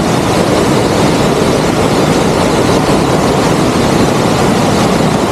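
Waterfall rushing: a loud, steady roar of falling water, heard from close to the top of the falls.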